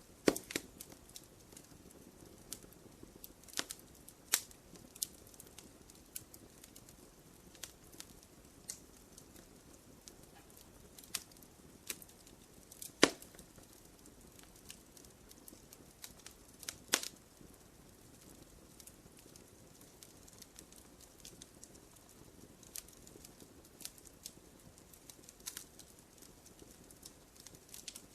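Wood fire in a fireplace crackling: irregular sharp pops and snaps over a faint low hiss. The loudest pops come right at the start, about halfway through, and about two-thirds through.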